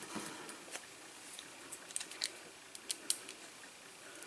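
Faint, scattered light clicks and ticks of small screws and a small screwdriver being handled.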